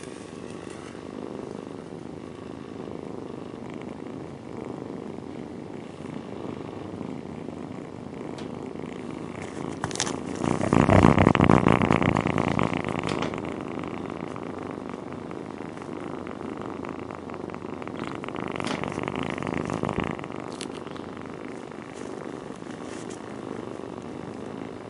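A cat purring steadily, growing clearly louder about ten seconds in for a couple of seconds and swelling again, less strongly, near twenty seconds.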